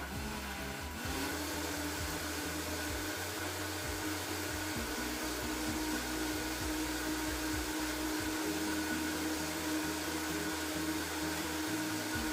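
Vitamix blender motor running at speed, liquefying a smoothie: a steady whirring drone whose pitch climbs about a second in, then holds.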